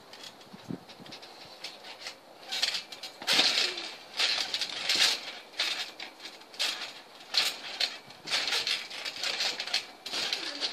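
Trampoline springs and frame creaking and clinking with each bounce, about one bounce a second, starting around two seconds in, with soft thumps from landings on the mat.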